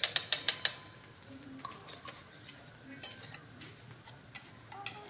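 Small metal ritual utensils clinking, about six quick sharp clinks at the start and a few softer ones later, over crickets chirping steadily.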